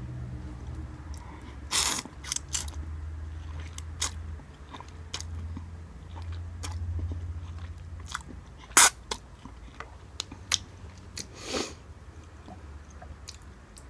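A person eating instant cup noodles: chewing and slurping, with many small wet mouth clicks and a few short, louder bursts, the sharpest about nine seconds in.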